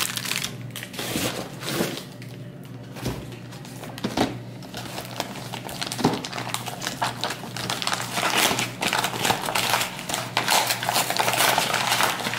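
Brown kraft paper and plastic wrap crinkling and rustling as a package is unwrapped by hand, sparse at first and busier in the second half.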